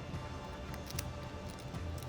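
Background music with light percussion strikes.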